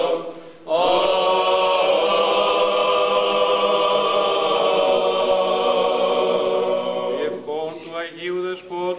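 Men's voices chanting Byzantine Orthodox hymnody, long held melismatic notes over a steady low note sustained underneath. There is a brief breath pause just after the start, then quicker syllables near the end.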